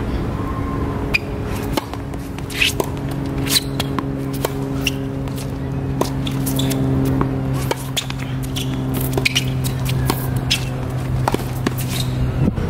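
Tennis rally on a hard court: a string of sharp pops from rackets striking the ball and the ball bouncing. Under it runs a steady low hum with a few overtones that cuts off near the end.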